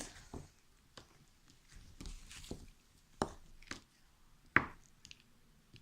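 Slime being squished and handled: a series of separate sharp, wet clicks and pops, the loudest about four and a half seconds in.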